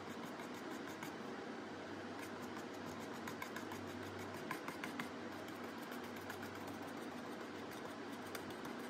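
Steady low hum and hiss of a small room's background noise, with a few faint light ticks about halfway through.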